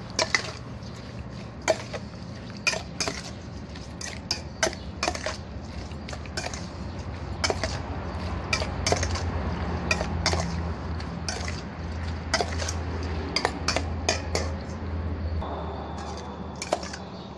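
Metal spoon knocking and scraping against a stainless steel mixing bowl as a wet salad is tossed, in irregular clinks, over a low steady hum.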